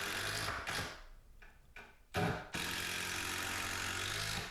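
Power drill driving screws into timber: the motor runs steadily, stops about a second in, then starts again a little after two seconds and runs until near the end.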